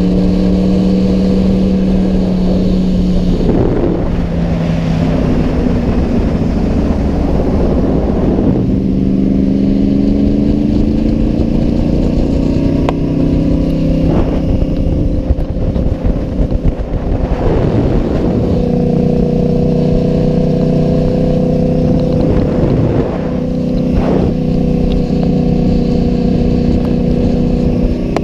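2013 Yamaha R1 inline-four engine running at road speed, its note rising and falling in pitch several times as the throttle opens and closes, over a steady low rush of wind.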